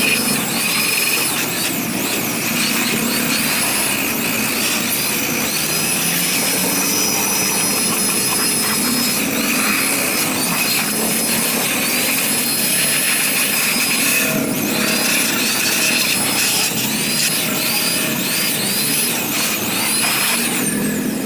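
Handheld electric aspirator blower running continuously, blowing dust out of a desktop computer and its cabinet. Its high motor whine dips and rises again and again, and it cuts off at the end.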